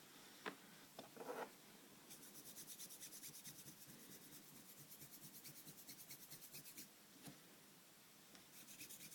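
Faint scrubbing of an alcohol-moistened cotton swab against a graphics card heatsink, rubbing off old thermal paste that has hardened slightly. A few light clicks come in the first second and a half, then quick, even back-and-forth strokes. The strokes pause about seven seconds in and start again near the end.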